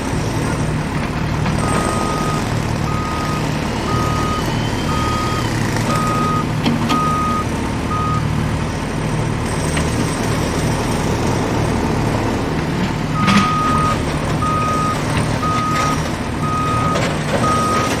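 A heavy diesel construction machine, such as a bulldozer, running steadily with a low drone. A reversing alarm beeps about once a second for the first several seconds, stops, then starts again a few seconds before the end. There are a few metallic knocks along the way.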